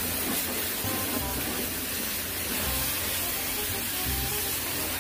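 High-pressure washer wand at a self-service car wash blasting a jet of water onto a car's side and wheel, a steady hiss.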